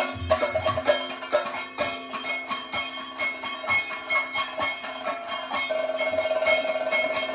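Music with quick jingling bell or small-cymbal strokes over a steady held drone tone; a higher held note comes in near the end.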